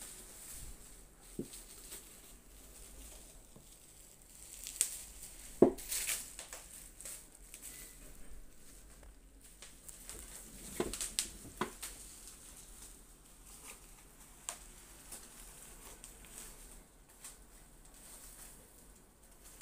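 Scattered light knocks and rubbing as a MacBook Pro laptop is handled and turned over on a wooden table, over quiet room tone. The loudest knock comes about five and a half seconds in, with a few more around eleven seconds.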